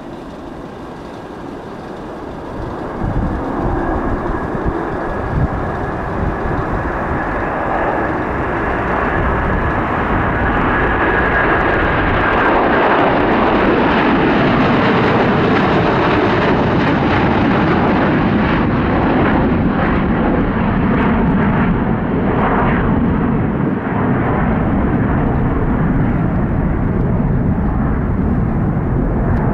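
Boeing 777 at takeoff thrust, passing on its takeoff roll and climbing away. The jet noise builds over the first few seconds with a steady high engine whine on top. The whine fades after about twelve seconds and a loud, crackling rumble carries on.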